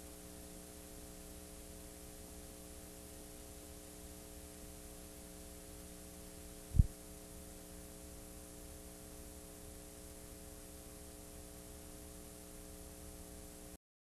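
Steady electrical hum with a faint hiss from playback of blank videotape. A single low thump comes about halfway through, and the sound cuts off suddenly near the end.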